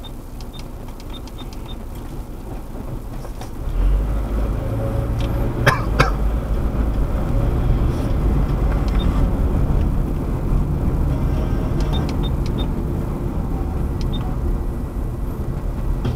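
Low, steady rumble of a motor vehicle running, growing louder about four seconds in, with one sharp click near six seconds.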